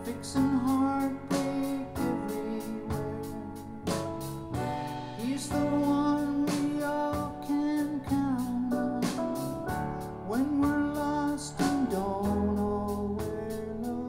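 Music playing through Harbeth SHL5+ loudspeakers driven by an SMSL VMV A1 amplifier, picked up by a recorder's mic in the room: a male voice singing over guitar.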